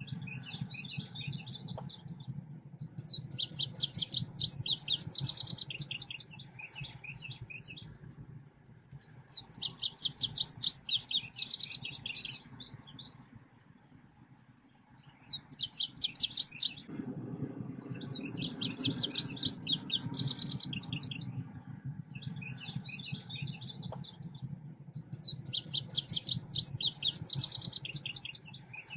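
Songbird known in Indonesian bird-keeping as 'selendang biru' singing continuously: repeated bouts of rapid, high chirping phrases a few seconds long with short pauses between them, over a low steady background hum. It is the kind of lively song played to train caged birds or lure wild ones.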